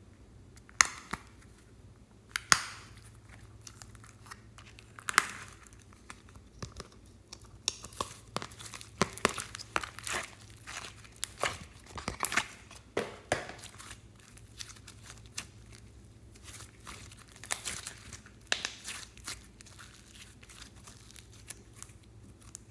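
Slime being handled by hand: clear slime pulled from a plastic container and pressed into a slime mix, with sticky crackles and pops and plastic crinkling. A few sharp single pops come in the first five seconds, then a dense run of crackling in the middle and another shorter one later.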